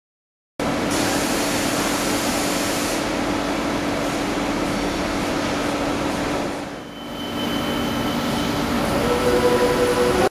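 Parpas THS100X machining centre running while its milling head swivels through its movements: a steady mechanical hum with faint motor whines. It starts abruptly about half a second in and dips briefly near seven seconds.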